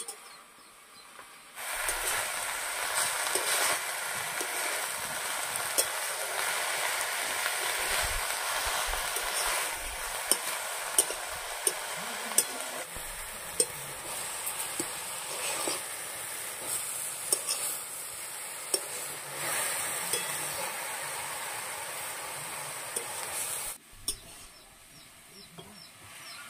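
Food sizzling in hot oil in a pan, with the clicks and scrapes of a spatula stirring it. The sizzle starts suddenly about a second and a half in and stops abruptly a couple of seconds before the end.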